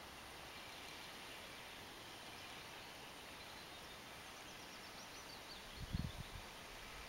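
Quiet outdoor ambience: a steady faint hiss with a small bird twittering faintly in the middle, and a couple of low thumps about six seconds in.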